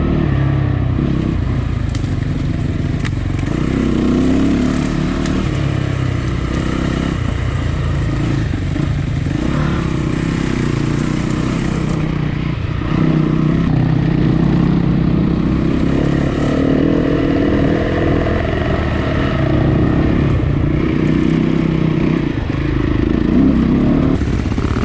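Dirt bike engine running under load, its pitch rising and falling every few seconds as the throttle is opened and eased off.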